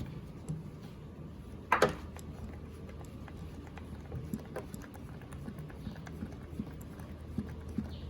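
Light clicks and knocks of tools and fittings being handled while a leak-down tester is set up on a 1968 Corvette engine cylinder, with one sharp click about two seconds in over a faint steady low hum.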